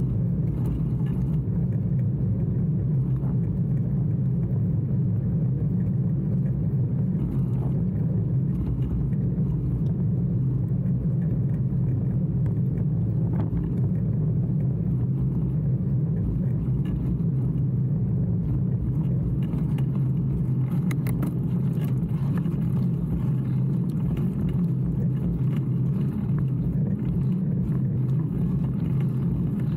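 Steady low rumble of riding a bicycle along a cracked asphalt lane: tyre noise and wind on the camera's microphone, constant throughout.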